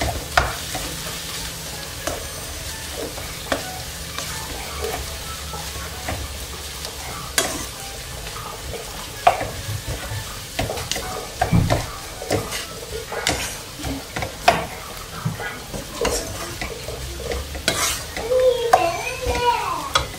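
Chicken, onion and tomato filling sizzling in a frying pan while a wooden spatula stirs it, with frequent scrapes and taps of the spatula against the pan.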